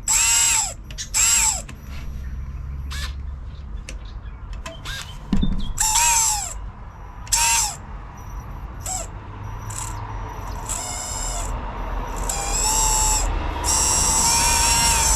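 Electric motor of a Traxxas TRX4 Bronco RC crawler whining as it is spun up and back down in short throttle blips, each a rising then falling whine, with longer held runs in the second half. A replacement motor on test, spinning too fast for a crawler.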